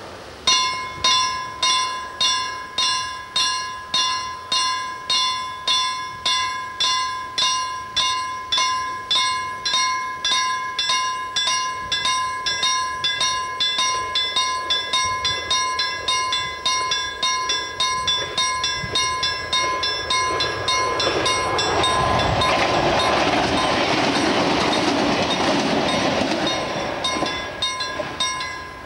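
Level-crossing warning bell ringing with even strikes, a little under two a second. From about twenty seconds in, a Y2 diesel multiple unit's running noise swells over the bell for several seconds and then fades, and the bell stops just before the end.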